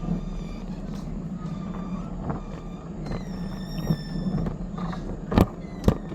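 Small box cab locomotive and its cars rolling down a steep grade: a steady low running hum, a high metallic squeal for about a second and a half midway, then two sharp clacks about half a second apart near the end.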